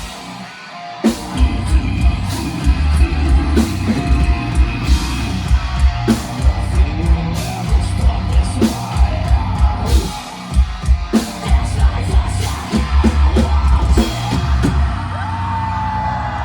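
A metalcore band playing live: pounding drum kit and heavy distorted guitars with yelled vocals, dropping out for a moment near the start and then driving on. About fifteen seconds in the drumming stops and a held ringing tone carries on.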